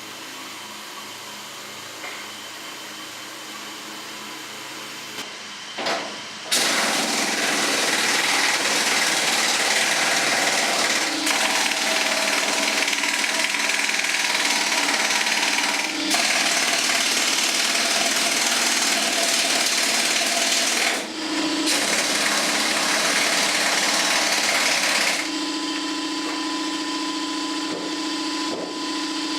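A small 3/8-inch drive impact wrench hammering bolts into a steel building's wall in several bursts of a few seconds each, with short pauses between them. Its dial is set to stop at 120 inch-pounds. A quieter steady hum follows near the end.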